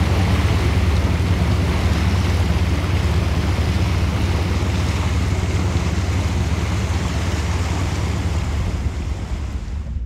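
Small motor ship under way: its engine hums steadily beneath the rush of water from the wake and wind on the microphone. The sound drops away abruptly at the very end.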